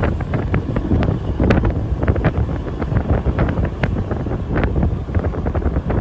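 Wind buffeting the microphone of a camera filming from a moving car, crackling constantly over the low rumble of the car on the road.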